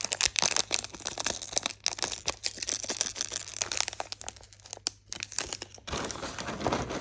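Plastic packaging crinkling as small bagged fishing lures are handled and opened, a run of irregular quick crackles.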